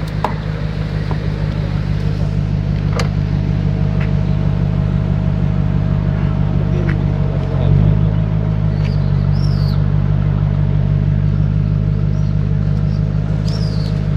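BMW 6 Series with an aftermarket loud exhaust idling steadily at the tailpipes: a low, even drone that holds one pitch and grows a little louder about halfway through.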